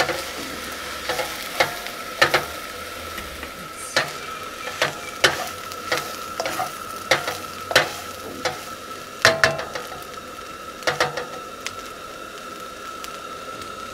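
Fried rice sizzling in a wok on a gas burner while a spatula stirs it, scraping and clacking against the pan at irregular strokes, one or two a second, which stop a few seconds before the end, leaving the sizzle.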